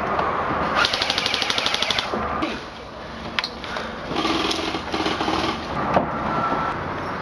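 Airsoft rifle firing a full-auto burst of about a second, around eleven shots a second, followed about a second and a half later by a single sharp snap.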